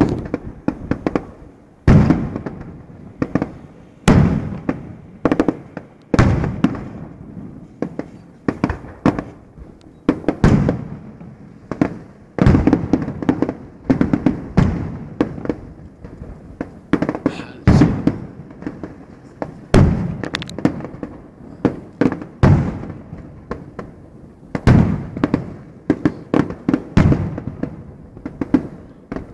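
Fireworks bursting in quick succession: a steady run of sharp bangs, about one every second or two, each trailing off, with smaller crackling pops in between.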